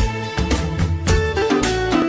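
Music with a drum beat, a heavy bass line and a melodic instrument line.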